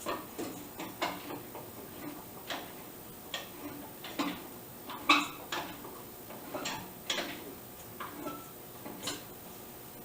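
Irregular metallic clicks and clinks, about a dozen spread unevenly, from the blade-height adjustment of a table saw being worked by hand.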